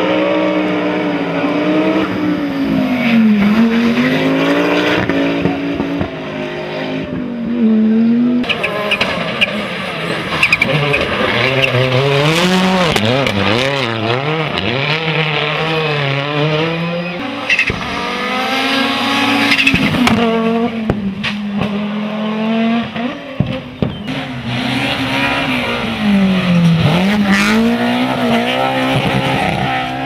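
Several rally cars, among them an Audi quattro and a Škoda Fabia WRC, going past hard one after another, engines revving up and dropping back through gear changes, with a few sharp cracks.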